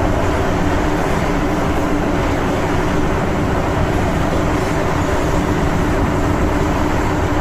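MTR M-train (Metro-Cammell electric multiple unit) running at steady speed through a tunnel: a loud, even rumble of wheels on rail with a constant hum over it.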